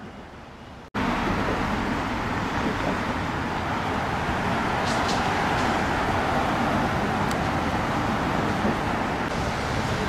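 Steady road traffic noise, cars and tyres on the roadway, cutting in abruptly about a second in after a quieter start.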